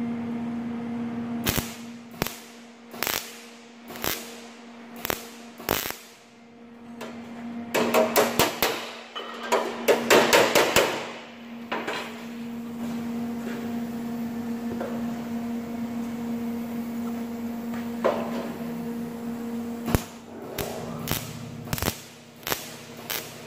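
Hammer striking the steel panel of a truck bonnet: a series of sharp metallic blows about a second apart, then a dense loud clatter of strikes about eight to eleven seconds in, and a few more sharp taps near the end. A steady hum runs underneath.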